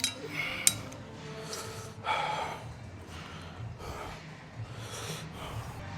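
A person breathing hard between sets, with several audible breaths about a second apart, over faint background music. Two sharp clicks sound right at the start.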